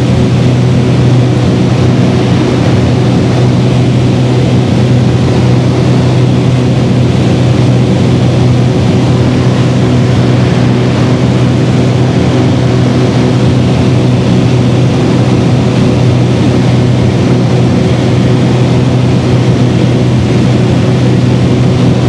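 Steady drone of a Beechcraft Baron's twin piston engines and propellers heard from inside the cockpit on approach: a strong low hum with a stack of steady tones above it, unchanging throughout.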